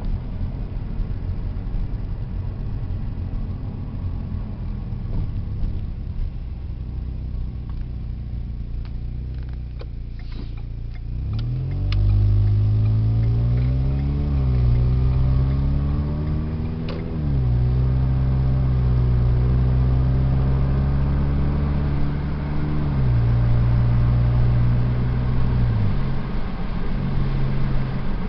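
Car engine running at low speed, then accelerating about twelve seconds in, its pitch climbing and dropping back twice as the gears shift up, then settling into steady cruising with a couple of brief let-offs near the end.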